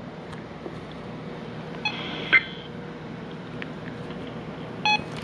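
Weather radio receiver's steady static with short electronic beeps about two seconds in and near the end, after the broadcast voice has ended.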